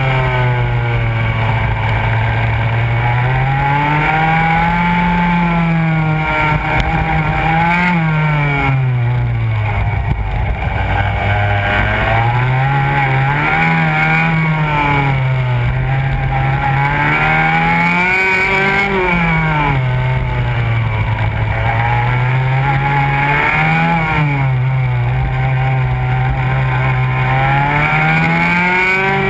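Go-kart engine at racing speed, heard from on board. Its pitch climbs under acceleration on the straights and drops off as the kart slows for each corner, over and over.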